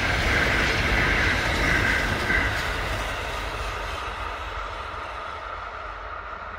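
A Kintetsu Urban Liner limited express electric train running past on the line, its rush of wheel and running noise loud at first and then fading steadily as it moves away.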